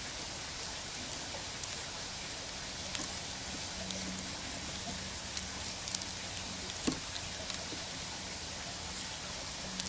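Grey squirrel grabbing sunflower seeds from a hand: small dry clicks and ticks of the seeds and shells, scattered and coming thickest in the middle, over a steady outdoor hiss.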